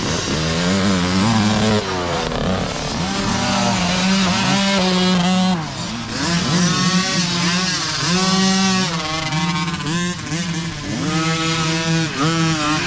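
Several mini dirt bikes riding past one after another, their small engines revving up and easing off again and again as the riders work the throttle.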